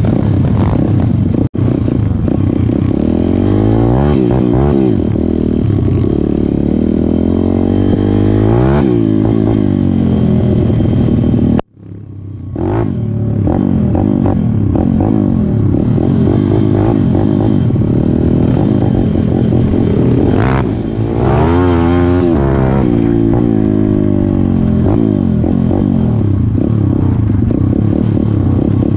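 Pit bike's single-cylinder four-stroke engine running and revving up and down as it is ridden over dirt and gravel, heard close from a helmet camera with wind on the microphone. The sound cuts out briefly about a second and a half in and again for about a second near the middle.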